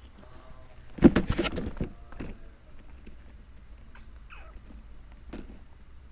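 Small plastic toy figurines clacking and knocking together as they are handled close to the microphone: a quick cluster of clacks about a second in, a single knock shortly after, and another near the end.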